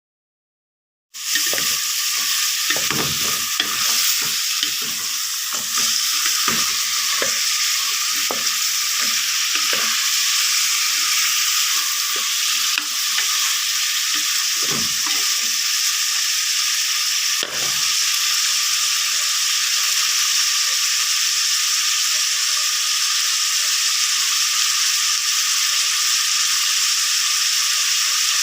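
Food frying in a hot pan, sizzling steadily from about a second in. A spatula stirs and scrapes against the pan with irregular strokes, thickest in the first several seconds, then only now and then.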